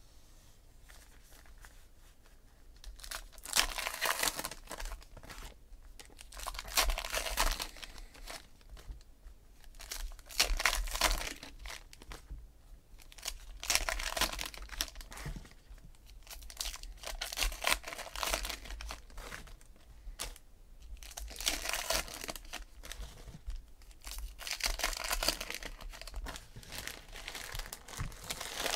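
Foil-lined trading-card pack wrappers being torn open and crinkled by hand, one pack after another. The tearing comes in separate bursts every few seconds, with short pauses between.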